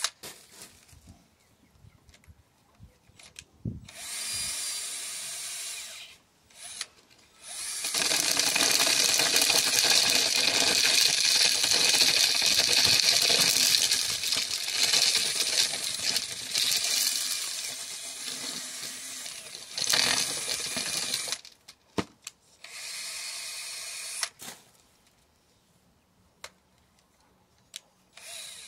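Cordless drill spinning a corn cob down inside a homemade PVC-pipe sheller lined with screw tips, loud for about thirteen seconds in the middle while the kernels are stripped off the cob. Shorter runs of the drill turning freely come before and after, with quiet handling clicks between.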